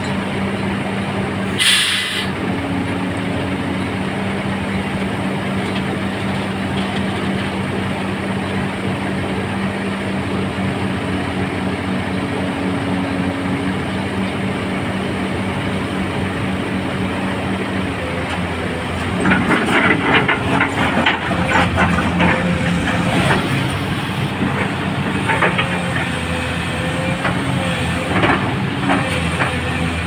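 XCMG XE215C crawler excavator's diesel engine running steadily, with a short hiss about two seconds in. From about two-thirds of the way through, irregular metallic clanking and rattling from the working machine join the engine and the sound gets louder.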